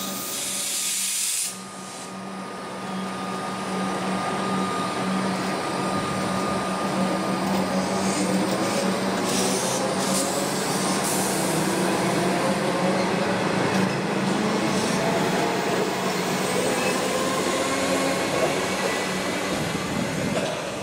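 Melbourne Metro suburban electric train running along the platform and pulling away: a steady rumble of wheels on rail with a humming motor whine that shifts in pitch. The sound dips briefly about a second and a half in, then builds and holds.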